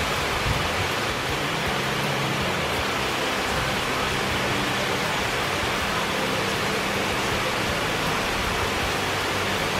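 Small waterfall cascading over rock ledges into a stream, giving a steady, even rush of water.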